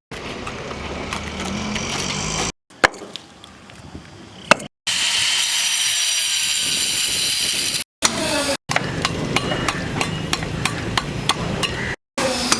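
Building-site tool work in several short clips cut together: a steady power-tool run, a few knocks, a loud even hiss for about three seconds, then a quick run of sharp taps or knocks, three or four a second.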